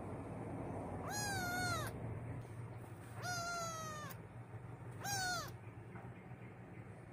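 Black-and-white kitten meowing three times, each cry rising, holding and dropping off, the last one shorter. The owner takes the crying for fear on its first day in a new home.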